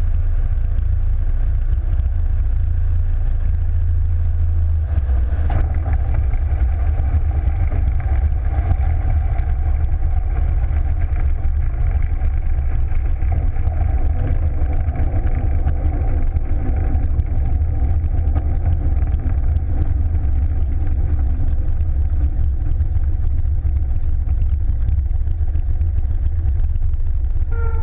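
Legal Eagle ultralight's engine and propeller running during landing and rollout, heard from a camera on the wing, with a heavy low rumble. About five seconds in, a steady engine hum with several tones comes up over the rumble and holds.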